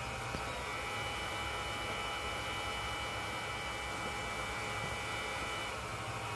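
Hairdryer blower running on high, forcing air through a steel pipe into a coal-fired bucket forge: a steady hum and rush of air, with a faint high whine that drops away near the end.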